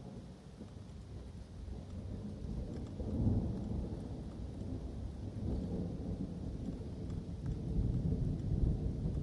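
Thunder rolling and rumbling, growing louder with swells about three seconds in and near the end, over falling rain.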